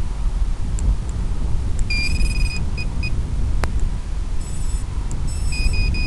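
Electronic start-up beeps from a freshly powered FPV quadcopter: one longer beep about two seconds in followed by two short ones, and another run of beeps near the end, with a single sharp click between them. Under it all runs a steady low rumble of wind on the microphone.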